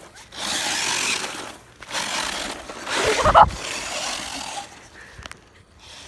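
RC car motor running in bursts as the truck drives across grass, with a loud bump about three seconds in.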